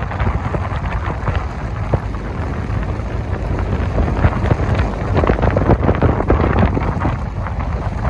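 Wind buffeting the microphone: a steady low rumble with irregular gusts, a little louder in the second half.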